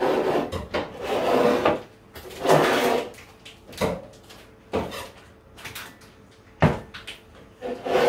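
Kitchen handling noises: two longer rustling, rubbing sounds in the first three seconds, then about four short sharp knocks spread over the rest.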